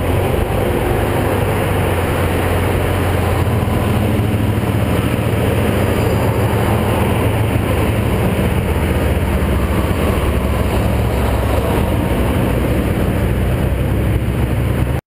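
Car driving at highway speed: steady road and wind rush with a low drone from the engine and tyres.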